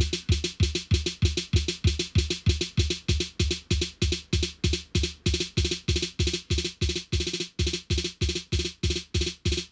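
Drum-machine kick drum from a Pico Drums sample module, triggered by a Serge TKB sequencer in ratchet bursts: a steady run of quick beats, about four to five a second, each a deep thump with a bright click on top.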